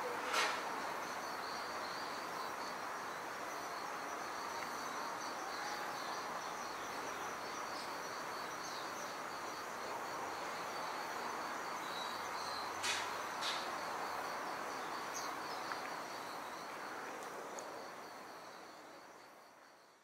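Woodland ambience: a steady high insect drone over an even background hiss, with three short sharp chirps or clicks, one near the start and two close together about thirteen seconds in. It all fades out near the end.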